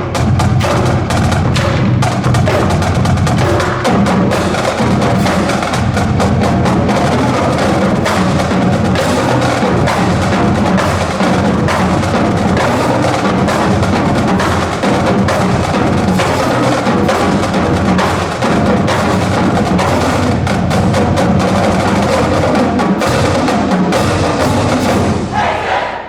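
Marching band drumline playing a cadence: fast, continuous snare, tenor and bass drum strokes with sharp clicking accents. It cuts off suddenly right at the end.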